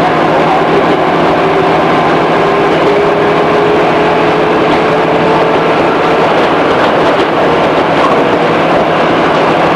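Running sound inside a JR 211-series electric train's motor car: a steady rumble of wheels on the rails, with a traction-motor whine that rises slowly in pitch as the train gathers speed.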